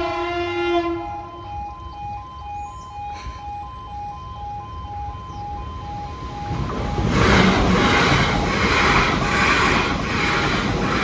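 Level crossing alarm sounders beeping in two alternating tones, with a train horn sounding briefly at the start. About six and a half seconds in, a Class 444 electric multiple unit passes loudly, its wheels beating rhythmically on the rails.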